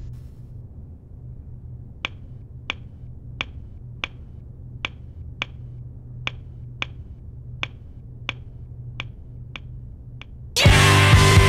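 About a dozen sharp clicks at an even pace, roughly three every two seconds, over a low steady hum. Loud rock music comes in about a second before the end.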